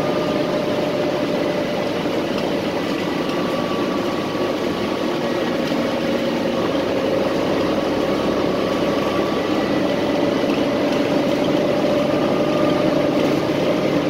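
Steady running noise inside a city transit bus: an even engine and drivetrain hum with several faint, steady whining tones.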